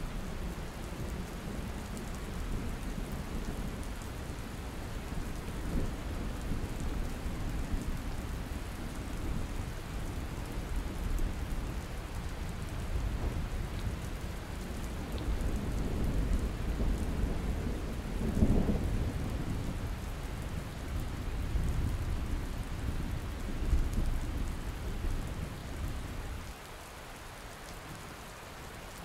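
Steady rain with rolling thunder rumbling and swelling in waves, loudest about two-thirds of the way through. Near the end the thunder drops away suddenly, leaving only the rain.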